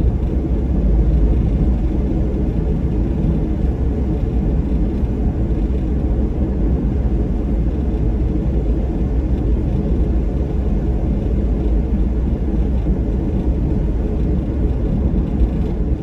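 Suzuki Every kei van driving on a wet road, heard from inside the cabin: a steady low rumble of road, tyre and engine noise.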